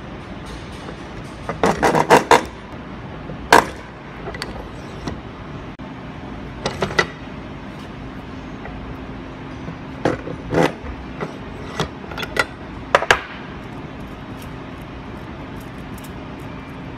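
Hand-operated arbor press pressing needle bearings into place: sharp metallic clinks and knocks of steel parts against the press ram and slotted plate, a quick cluster about two seconds in, then single knocks every second or so. A low steady hum joins about six seconds in.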